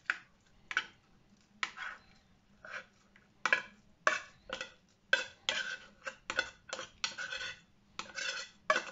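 A small metal spoon scraping and clinking inside an opened tin can as tuna is scooped out: a run of short, irregular scrapes and clicks, several a second in the busiest stretch.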